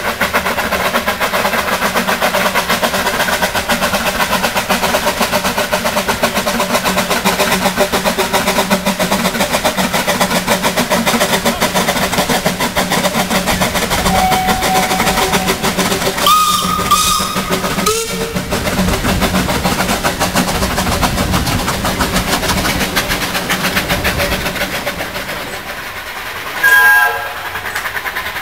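Small steam locomotive running past with its train, working steadily. Its steam whistle sounds for about two seconds past the middle, and a short, loud whistle blast comes near the end.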